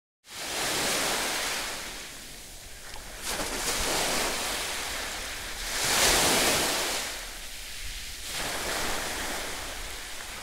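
Sea waves washing on a beach, an even rush of water that swells and falls back about four times.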